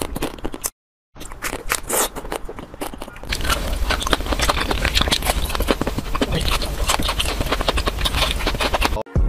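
Crunching and chewing of bites into chocolate-coated ice cream bars: dense crackling bites, broken by a short silent gap about a second in, growing fuller and louder from about three seconds in, and stopping abruptly near the end.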